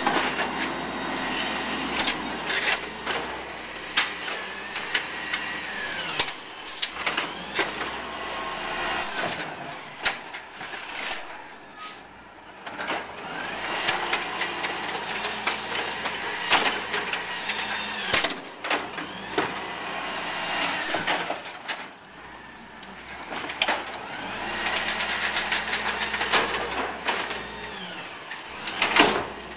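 Automated side-loader arm of a Peterbilt 320 Amrep garbage truck cycling three times: the diesel engine revs up to drive the hydraulics, with a rising then falling whine each time, and a cart knocks and bangs as it is lifted and tipped into the hopper.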